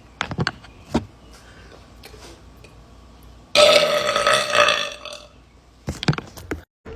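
A woman burps once, long and loud, about halfway through, after a few short clicks.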